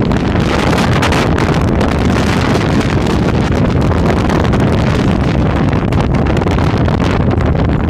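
Wind buffeting the microphone of a moving car, a loud steady rush with the car's road noise beneath it.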